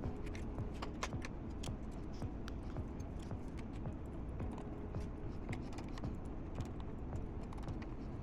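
Light, irregular clicks and taps of small hand tools and parts on an opened 2.5-inch hard drive as it is closed up, over a steady low hum.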